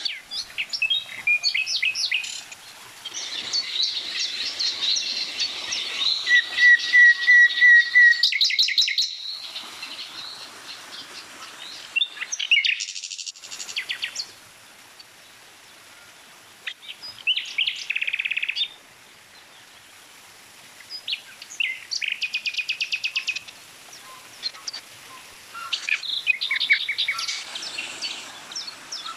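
Several songbirds chirping and singing, their calls overlapping: short whistled notes, runs of quickly repeated notes and fast trills.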